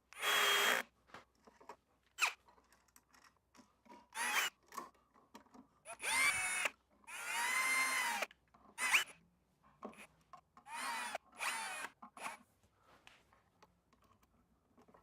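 Power drill run in about nine short trigger bursts, its motor whine speeding up and slowing down in each, as it drives screws.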